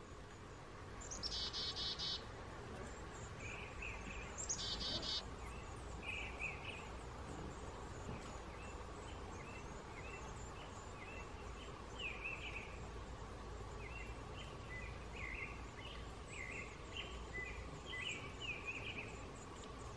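Woodland songbirds: a bird sings a short trilled phrase twice in the first five seconds, then many short chirps follow through the rest, over a faint steady hum.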